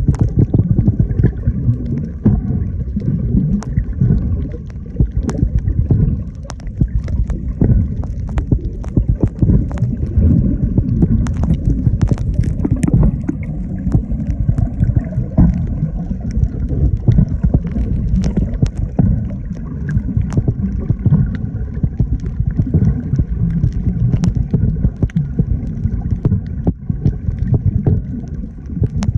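Steady low rumble of moving water buffeting the microphone, with scattered faint clicks.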